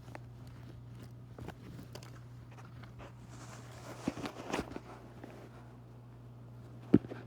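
Quiet indoor handling noises: scattered soft taps and rustles, a small cluster about four seconds in and one sharper tap near the end, over a steady low hum.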